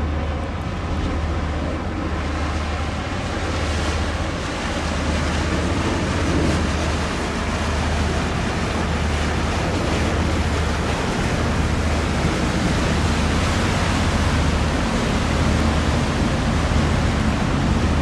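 Steady low drone of an inland cargo ship's engine under a constant rushing of wind and water.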